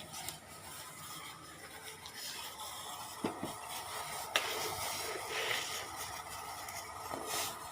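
Faint scraping of a spoon as sugar and tea leaves are spooned into a pan of chai, with one light click of the spoon about halfway through.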